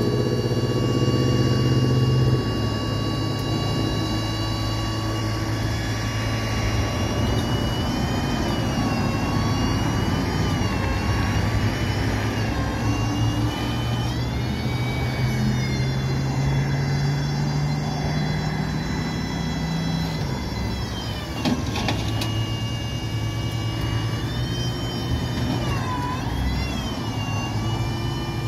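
A truck engine running continuously nearby, its pitch rising and falling several times, with a slow climb in revs past the middle before it drops back, and one brief knock about three quarters of the way in.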